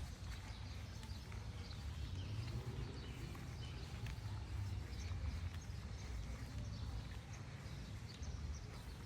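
Small-town outdoor ambience: a steady low rumble with scattered light clicks and short chirps over it.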